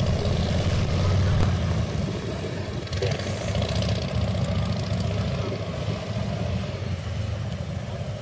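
Two motorcycles running at low speed through tight slow-speed turns, a steady low engine note whose level drops a little about two seconds in.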